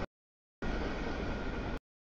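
Freight train boxcars rolling past with a steady noise and no clear tones. The sound cuts out completely twice: it drops out just after the start, returns for a little over a second, then cuts off again near the end.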